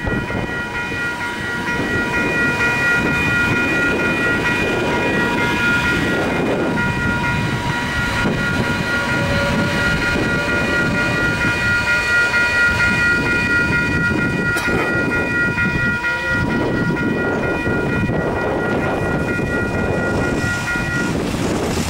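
Level-crossing electronic bells (e-bells) ring steadily while a Matangi electric multiple-unit train rumbles past over the rails. The bells cut off about 21 seconds in as the crossing deactivates.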